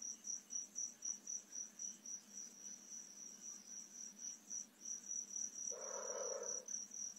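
Crickets chirping at night: a steady, evenly repeated high chirp. A short, soft noise is heard about six seconds in.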